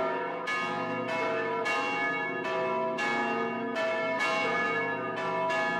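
Church bells of S:ta Clara kyrka ringing, a new stroke about every half second, each tone ringing on under the next. This is the helgmålsringning, the Saturday-evening ringing that rings in the weekend.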